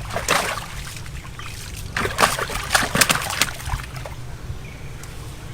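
Water splashing and sloshing in short irregular bursts, near the start and again about two to three and a half seconds in, over a steady low rumble.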